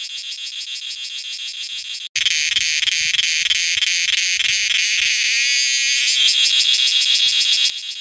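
Cicadas buzzing: a shrill, fast-pulsing drone. It cuts out for an instant about two seconds in and comes back much louder, then drops back to the softer level near the end.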